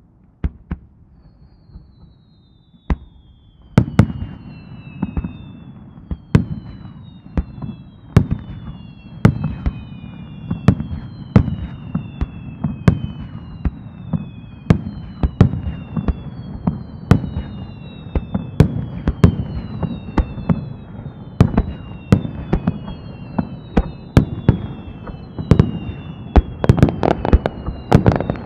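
Aerial fireworks bursting in a rapid barrage, with repeated whistling tones that fall in pitch. A few single bangs come first; about four seconds in the bangs come thick and fast, and they grow denser still near the end.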